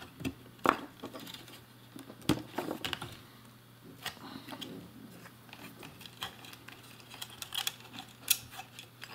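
Irregular small clicks, taps and knocks of hands handling wires and a 3D-printed plastic enclosure and its lid panel, with sharper knocks about a second in and a little over two seconds in.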